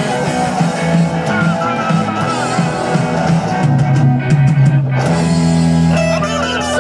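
Live rock band playing: amplified electric guitars, bass and a drum kit.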